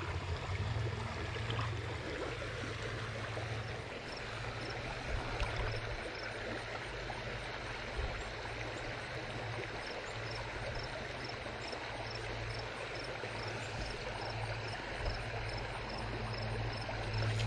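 Steady rush of a shallow trout stream running over gravel riffles. From about four seconds in, a faint high chirp repeats roughly twice a second.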